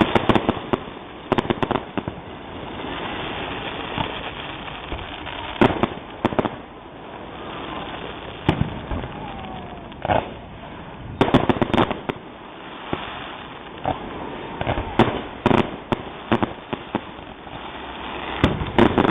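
Aerial fireworks shells bursting in a finale barrage: irregular booms, several coming in quick clusters of rapid bangs, over a steady background din.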